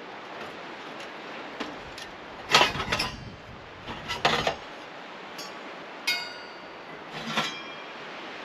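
Metal pieces clinking and clanking as they are handled and knocked together, one ringing briefly about six seconds in, over a steady hiss.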